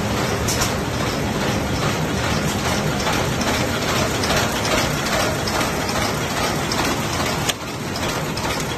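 Square-bottom paper bag making machine (A400, twisted/flat handle type) running at steady production speed: a continuous, dense clatter of many fast mechanical clicks over a low machine drone.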